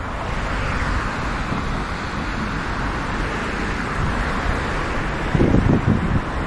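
Road traffic passing on a street: a steady rush of tyres and engines that swells and eases as vehicles go by, with a brief voice near the end.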